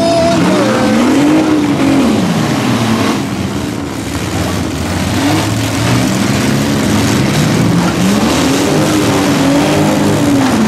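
Several compact pickup truck engines revving hard, their pitch rising and falling again and again and overlapping, as the demolition-derby trucks push and ram in the mud.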